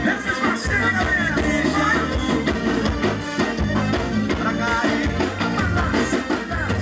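Live band music: a man singing over bass guitar and drums.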